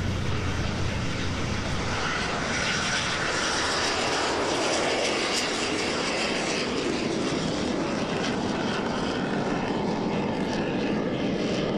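A-4B Skyhawk's turbojet engine running loud and steady as the jet lifts off and climbs away. The sound is deep at first, brightens into a hiss through the middle, and dulls toward the end.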